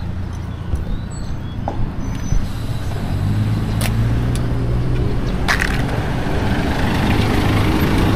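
Motor traffic on a narrow street: a vehicle engine runs close by with a steady low hum, and the traffic noise swells in the second half as a vehicle approaches. A few sharp clicks sound around the middle.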